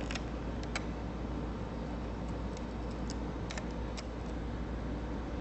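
A hollow shaft screwdriver clicking lightly against small screws and metal while a phased array probe is unscrewed from its probe holder: about eight short, scattered ticks, most of them in the first four seconds. Underneath runs a steady hum.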